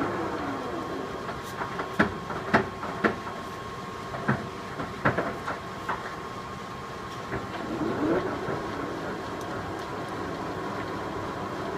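Large 1986 Poreba engine lathe's spindle and big chuck coasting down with a falling whine, then several sharp clunks as the headstock gear-change levers are shifted, then the spindle spinning back up with a rising whine about eight seconds in, over a steady machine hum.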